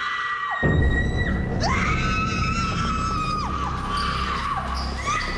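Several women screaming in long, high, held screams, one after another, each rising at the start and falling away at the end. A music track with a steady low beat comes in under them about half a second in.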